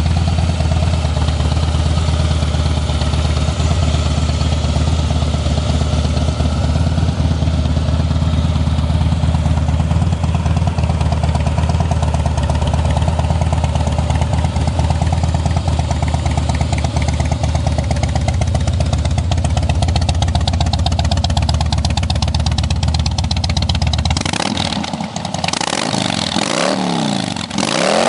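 2009 Harley-Davidson Softail Custom's Twin Cam 96B V-twin idling steadily through aftermarket Rush mufflers, then revved up and down a few times near the end.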